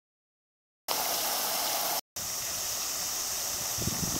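Pond fountain spray falling back onto the water surface: a steady splashing hiss that starts about a second in, with a short break just after two seconds and a few low rumbles near the end.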